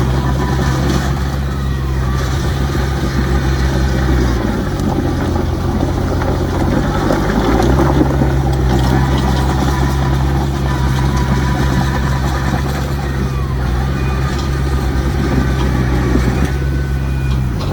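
Heavy diesel engine of earthmoving machinery running steadily; its note drops for about three seconds, starting about four seconds in, then climbs back.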